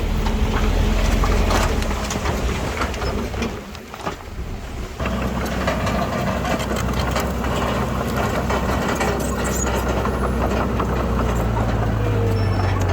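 Heavy diesel machinery working: a steady engine note with scattered metallic clicks and rattles. The sound drops briefly about four seconds in, then comes back at full level, and the engine note changes near the end.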